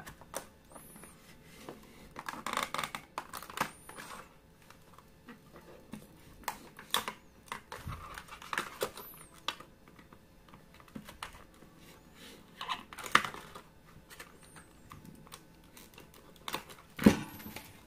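Ingco utility knife blade cutting along the edge of a stiff clear plastic blister pack: irregular clicks, scrapes and crackling of the plastic, with louder stretches about two and a half seconds in, around thirteen seconds and near the end.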